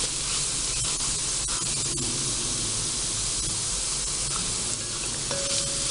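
Minced garlic sizzling in hot oil in a glass pot, a steady hiss, with a few light clicks of a spoon stirring against the glass in the first couple of seconds.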